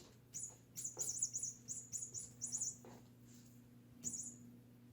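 Electronic squeaking toy mouse giving about five short runs of rapid, high-pitched chirping squeaks.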